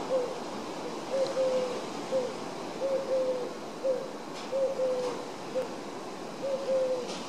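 A dove cooing in repeated three-note phrases: a short coo, a longer, slightly falling coo, then a short coo, about four times over, above a steady background hiss.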